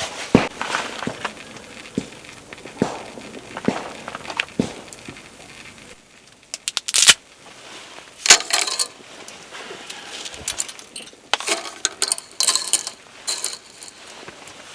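Irregular clinks, taps and rustles of small hard objects being handled. They pause briefly about six seconds in, then a quick cluster of sharp clicks follows and more handling noise comes in bursts.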